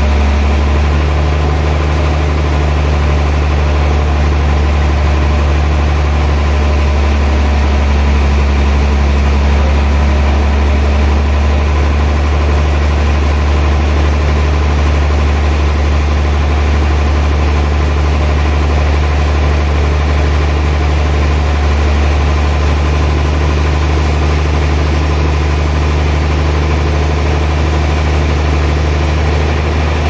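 Large band sawmill running steadily as its blade cuts through a big log: a loud, even, low drone with no letup.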